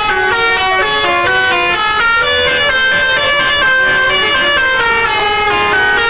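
A tour bus's basuri melody horn playing a tune, with loud pitched notes stepping up and down several times a second.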